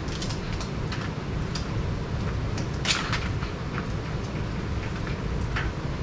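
Electrical wire and fish tape being fed down through a wall cavity: scattered small scrapes and clicks, with one sharper knock about three seconds in, over a steady low rumble.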